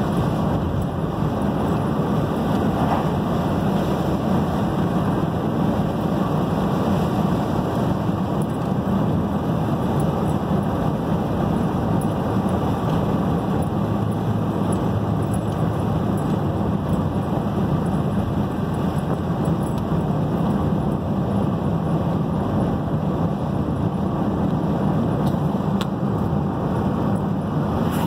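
Steady road noise inside a moving car: a low engine and tyre hum on asphalt, holding an even level.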